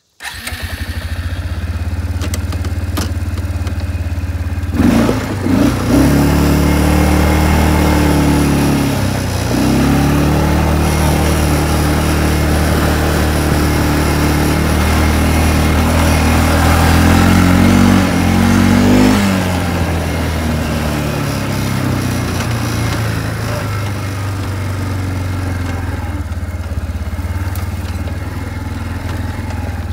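Four-wheeler (ATV) engine running as the machine is ridden, picked up by a phone on board; the engine note rises and falls repeatedly from about five seconds in until about nineteen seconds in, then settles to a steadier drone.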